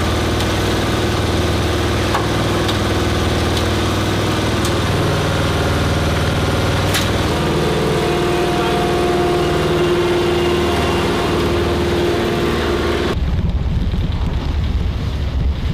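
An engine running steadily, its tone shifting a couple of times, then cutting suddenly near the end to low wind rumble on the microphone.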